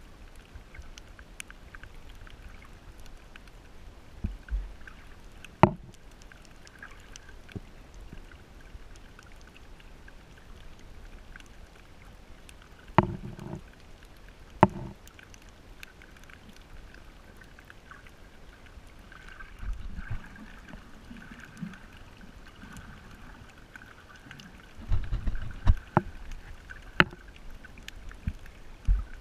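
Muffled underwater sound picked up by a camera held under the water while snorkelling: a steady dull water hiss, broken by a few sharp clicks and several low thumps.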